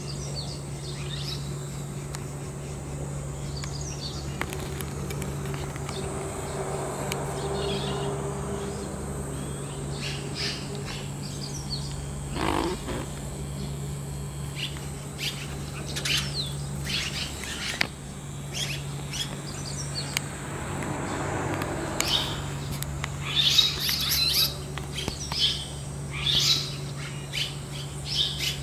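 Red-rumped swallows twittering: short, scattered high chirps that come thicker and louder near the end. A steady low hum runs underneath.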